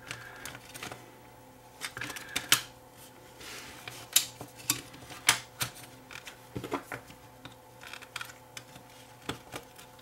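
Scattered light clicks and taps of the Fluke 12 multimeter's plastic case and internal parts being handled and pried at while the display assembly is lifted out.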